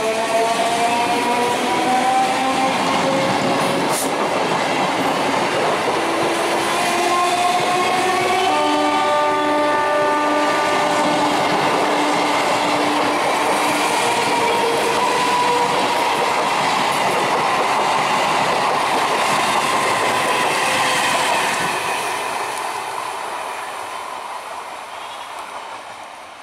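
Electric multiple unit (EMU) local train running past close by as it accelerates. Its motors whine, rising in pitch, over the clatter of the wheels on the track, and a steady high tone holds for several seconds midway. The sound fades away over the last few seconds.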